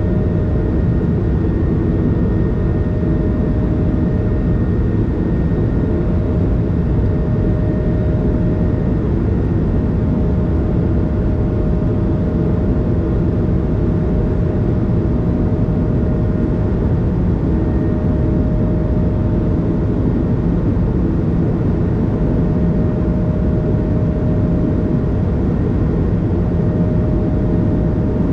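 Cabin noise of an Airbus A220 in flight shortly after takeoff: a steady, even roar from its Pratt & Whitney geared turbofan engines and the airflow, with a thin steady whine running through it.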